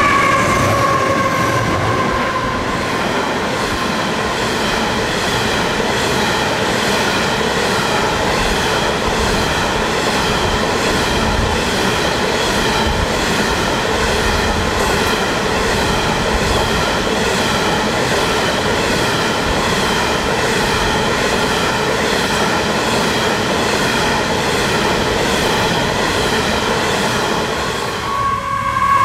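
Diesel-hauled coal train passing close by. The locomotive's engine note falls away in the first couple of seconds, then a long rake of steel coal hopper wagons rolls past with a steady rumble, a high metallic whine from the wheels on the rails and regular clacks of the wheels.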